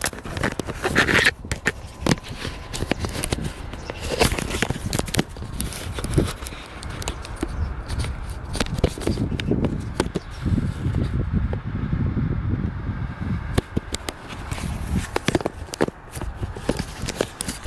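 Handling noise on a phone's microphone: fingers and clothing rubbing and knocking against it in an irregular run of scrapes and clicks, with a low rumbling stretch in the middle.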